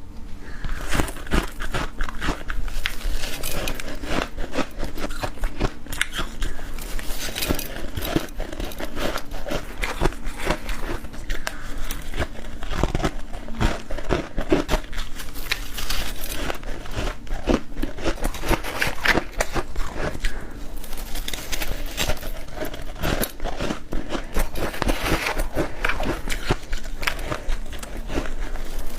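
Close-up biting and chewing of crunchy freezer frost, a dense run of crackling crunches that continues throughout.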